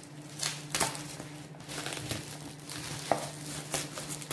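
Scissors cutting through bubble wrap around a cardboard box, the plastic crinkling as it is handled, with a few separate sharp snips.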